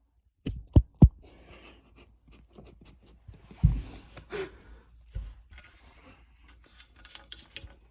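Sharp metal clicks and knocks from BMX parts being handled and fitted during assembly. Two loud knocks come about a second in and a heavier thump just before four seconds, with lighter clicking between.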